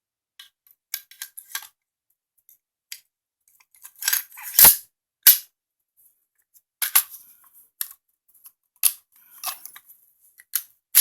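Sharp metal clicks and clacks of an AR-15 charging handle with an extended latch being seated in the rifle and worked, in scattered single strikes with the loudest cluster about four to five seconds in.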